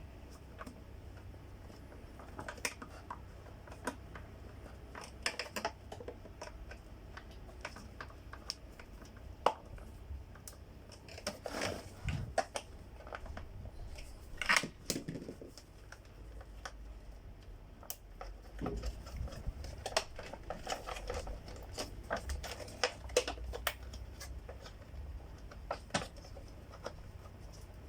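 Irregular plastic clicks, taps and knocks from hands handling and fitting together the parts of a vacuum cleaner's housing during reassembly.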